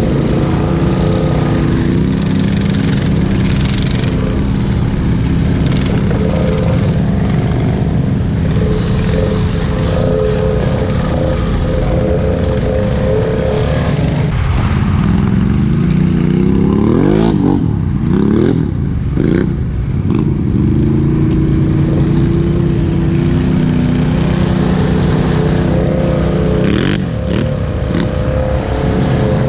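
Honda 500 ATV's single-cylinder engine running while riding, its pitch mostly steady. About halfway through it revs up and down several times in quick succession.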